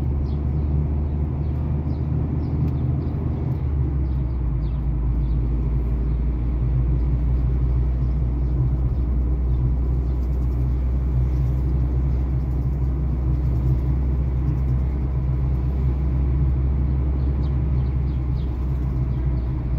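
Steady low rumble of a car's engine and tyres on the road, heard from inside the cabin while driving; the deep rumble grows a little heavier about four seconds in.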